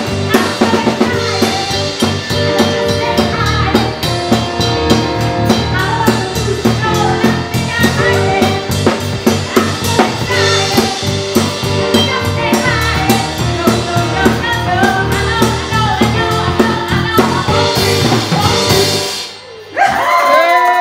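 Live band playing: a woman singing over a drum kit and electric bass, the drums keeping a steady beat. Near the end the music drops out abruptly, then a held chord comes in with a downward slide.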